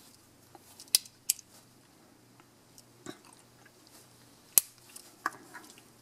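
Wenger EvoGrip S557 Swiss Army knife being handled, its metal tools giving a handful of sharp clicks, the loudest about a second in and again past four and a half seconds.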